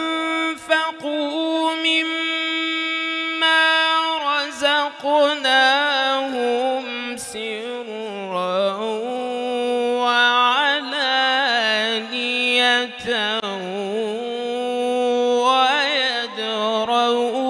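A man's solo voice reciting the Quran in melodic, chant-like tajweed style: a long held note for about the first four seconds, then wavering, ornamented runs that slide up and down in pitch.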